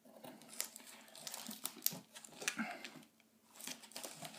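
Scissors cutting and scraping through packing tape on a cardboard box, with irregular snips and the rustle of the cardboard being handled.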